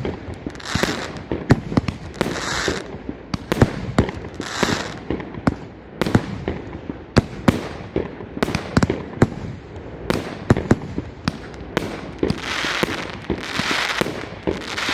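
K 43-25 'Salute in Zanzibar' consumer firework battery firing: an irregular string of sharp shots and bursts, mixed with spells of hissing, over and over.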